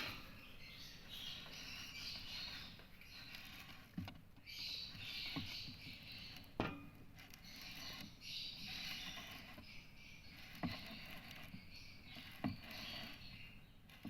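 Faint scratchy chatter of caged parrots coming and going, with a few sharp clicks scattered through it.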